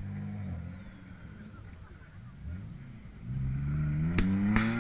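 Off-road 4x4's engine revving as it drives over the dirt course, rising steadily in pitch and getting louder through the last second and a half. A sharp crack and a short rush of noise come near the end.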